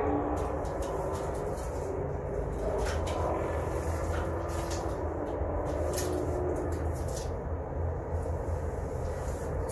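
Broom scraping across a concrete slab, sweeping up concrete dust and debris in short scratchy strokes, over a steady low rumble.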